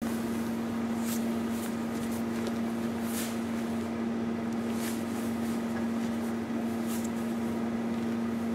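Steady hum and room noise of an indoor hall, with a few brief rustling sounds.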